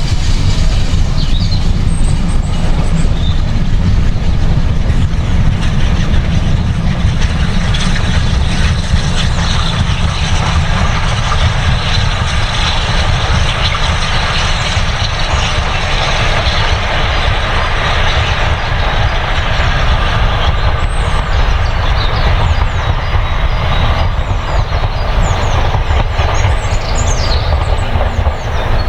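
Train running past on the line: a steady heavy rumble with rail and wheel noise, without a break.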